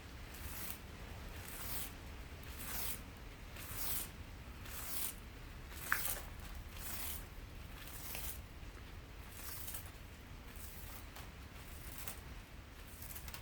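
Copper winding from a small electric motor being pulled apart by hand: a series of short scraping, tearing strokes, roughly one a second, with a sharp click about six seconds in.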